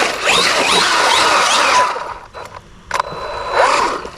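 Losi Super Rock Rey RC truck's brushless electric motor whining up in pitch again and again under throttle for about two seconds as the truck pushes into deep ground, with a dense rush of drivetrain and tyre noise. The noise drops off, there are a couple of clicks, and then a short rev comes near the end.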